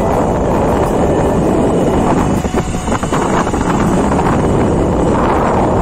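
Wind rushing and buffeting loudly over a phone microphone on a moving scooter.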